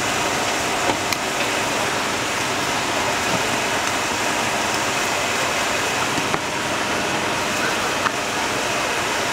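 Busy open-air market ambience: many people talking at once over a steady background noise, with a few sharp clicks.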